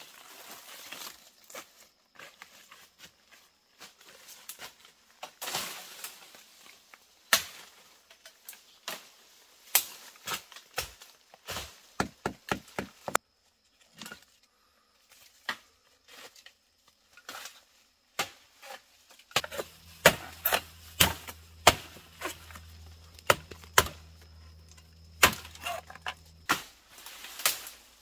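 Wood being chopped with a blade: irregular sharp strikes, some in quick runs, with a low steady hum behind them for a stretch in the second half.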